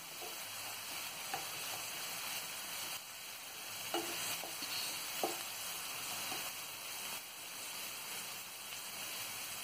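Chopped onion and a ground cumin, green chilli and garlic paste frying in oil in a pan: a steady sizzle, with a wooden spatula stirring and scraping through it and a few faint ticks.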